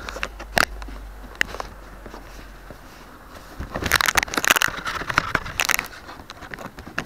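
Keychain camera's microphone on a cardboard airplane: a couple of sharp handling clicks, then, from about three and a half seconds in, wind rushing and crackling over the microphone as the plane flies, easing off about six seconds in.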